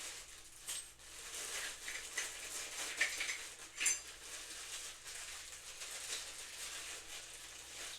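Plastic packaging rustling and crinkling as parts are handled and unpacked, with a few light clinks and knocks of hard parts, the sharpest a little under four seconds in.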